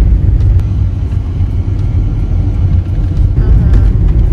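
A car driving along a road, heard from inside the cabin: a loud, steady low rumble of road and wind noise.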